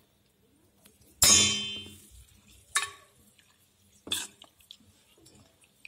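Metal vessel clanking as it is handled: one loud clang with a short ringing tail about a second in, then two lighter clinks.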